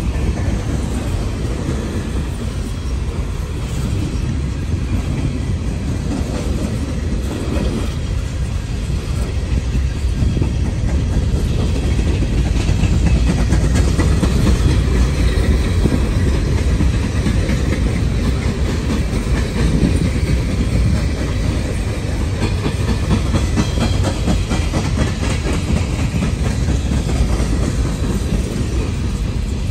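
Freight train of steel coal hopper cars rolling past close by: a steady rumble of wheels on rail with repeated clicks from the wheels. It grows a little louder in the middle.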